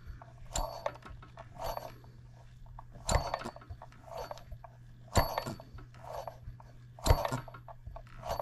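Enjomor 6cc hit-and-miss model engine being turned over by hand-flipping its flywheels, a short metallic clicking clatter about once a second with the loudest clicks about every two seconds, over a steady low hum. It is cranking without firing after being choked, with fuel only just starting to reach it.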